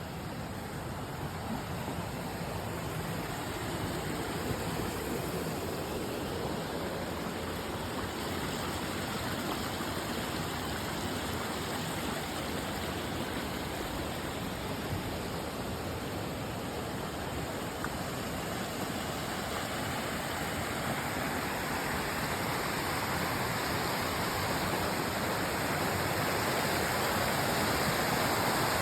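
Steady rush of a rain-swollen creek running over rocks, growing louder toward the end.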